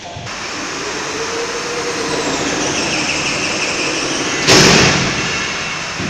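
Switchgear operating mechanism in a generator circuit breaker cubicle, running with a mechanical whirr that swells and shifts in pitch, then a loud clunk about four and a half seconds in as the switch completes its travel and the panel's position indicator changes state.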